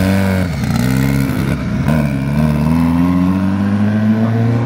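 A vehicle engine revving: its pitch rises and falls twice, then climbs steadily for about two and a half seconds as it accelerates, and drops off near the end.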